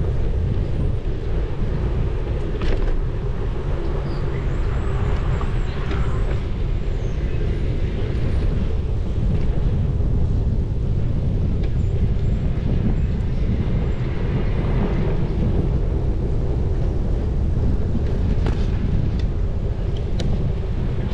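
Steady low rumble of wind buffeting a bike-mounted action camera's microphone while riding, with a few faint clicks.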